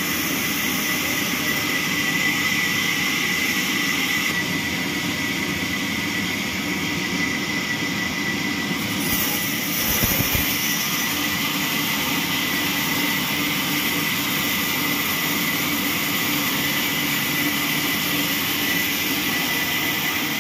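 Horizontal band sawmill running and sawing lengthwise through a squared log, a steady mechanical noise with a constant high singing tone. A single short knock about ten seconds in.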